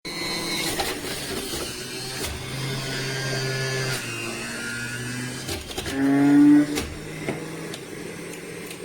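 Electric juicer motor running, its pitch shifting several times as the load changes, loudest about six seconds in.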